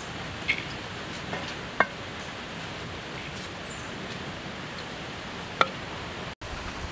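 Steady hiss of background noise with a few sharp clicks, two of them louder, about two and five and a half seconds in.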